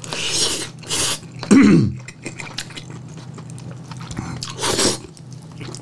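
Close-miked eating: chewing a mouthful of cheese-topped gochujang stir-fried rice, with short wet slurping or sucking sounds at the start, about a second in and near the end. A brief hummed 'mm' comes about a second and a half in.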